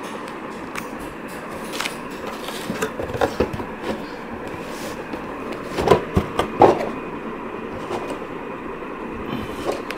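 Handling noise: a few light knocks and rustles, most of them around the middle, as the cardboard motherboard box and its packaging are moved, over a steady background hiss.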